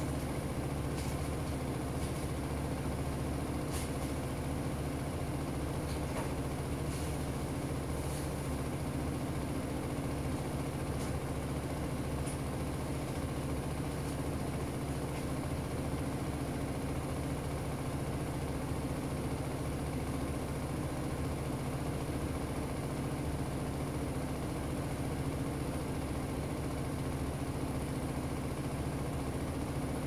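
Panasonic Ag+ 16 kg top-load washing machine in its spin cycle, the drum spinning a load of towels fast with a steady motor and drum hum. A few faint ticks come in the first several seconds.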